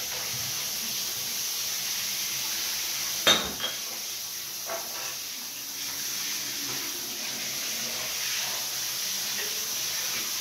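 Water spraying steadily from a hand-held shower head into a bathtub as glass beer bottles are rinsed, with a sharp clink of glass about three seconds in, a lighter one just after, and a few faint knocks later.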